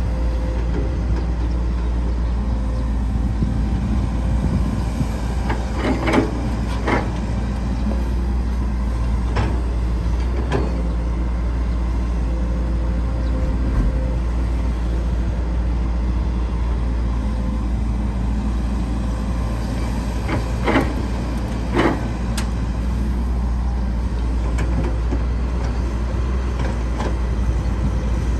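Caterpillar 312C hydraulic excavator's diesel engine running steadily with a low rumble, broken by a few sharp metallic clanks, twice in quick pairs.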